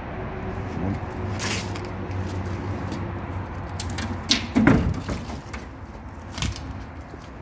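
A few knocks against the bodywork of an old school bus, the loudest a thump with a short scrape about four and a half seconds in, over a steady low hum.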